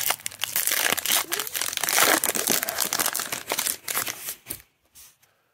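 Foil wrapper of a 2021 Panini Mosaic football card pack being torn open and crinkled by hand: a dense run of crackling and rustling that stops abruptly about four and a half seconds in.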